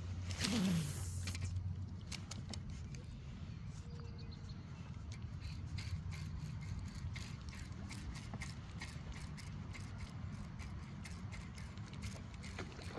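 Fishing reel ticking in a rapid, even run of clicks as a hooked bass is played, over a steady low hum.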